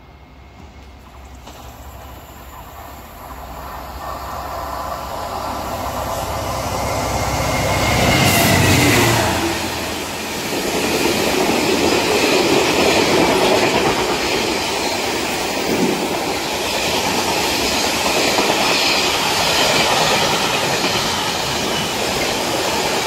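Diesel-hauled engineers' train of yellow ballast wagons passing at speed. It grows louder as it approaches and is loudest about eight seconds in, when a tone falls in pitch as the locomotive goes by. After that the wagons' wheels rumble past steadily on the rails.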